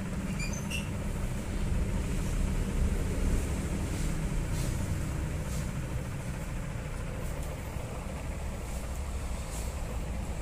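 Steady low background rumble, with a few faint short high chirps about half a second in.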